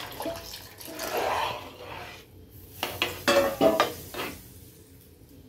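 Milk poured from a metal pot splashing into a metal kadai. About three seconds in, a metal spatula clinks and scrapes against the kadai several times as the milk and vermicelli are stirred.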